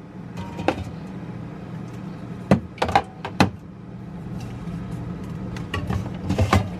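Items being handled and set down on fridge shelves: several short knocks and clinks over a steady low hum.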